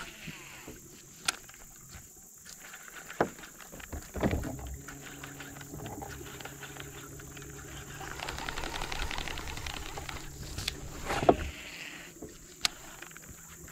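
Electric trolling motor humming steadily from about four seconds in, with a few scattered clicks and a single sharp knock near the end.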